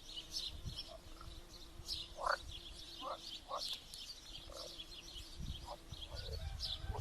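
Frog chorus mixed with birdsong: a faint, steady frog drone under repeated short croaking calls, with birds chirping high above throughout.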